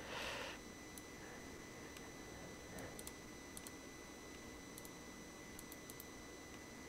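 Quiet room tone with a faint steady electronic whine, a brief breathy hiss at the start, and a few faint, scattered computer-mouse clicks.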